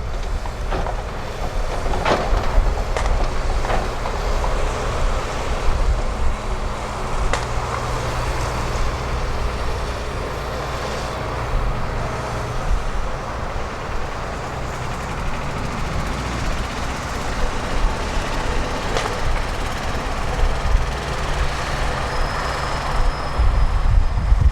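Heavy diesel construction machinery working: a steady engine rumble broken by several sharp metallic knocks, with a thin high whine near the end.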